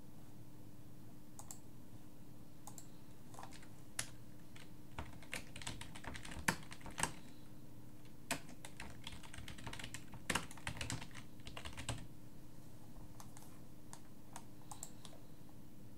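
Typing on a computer keyboard: irregular key clicks, busiest through the middle of the stretch, over a faint steady hum.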